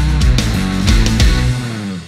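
Background rock music with guitar and drums, dying away near the end.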